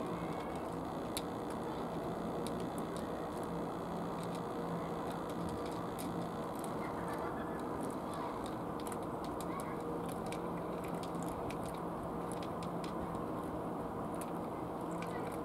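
Cats eating from plastic trays: many small, quick chewing clicks over a steady background rumble with a faint low hum.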